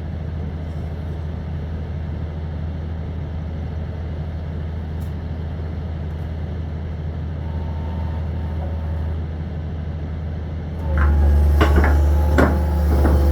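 Hitachi 225 excavator's diesel engine running steadily. About eleven seconds in, the engine rises under load and wood starts cracking and snapping as the machine crushes debris.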